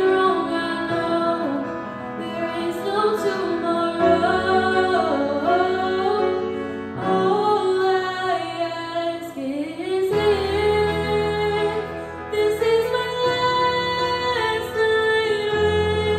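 Solo female voice singing a slow ballad into a microphone over piano accompaniment, the piano's chords changing every few seconds beneath the melody.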